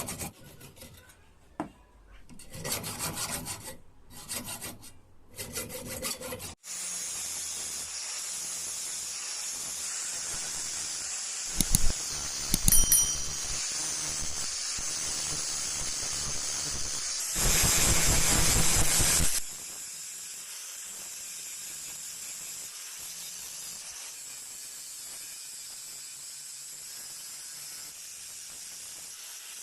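Hand-filing or rubbing on metal in uneven strokes for about six seconds, then a steady high hiss. Two ringing metallic clinks come near the middle, and a louder rush of hiss lasts about two seconds a little later.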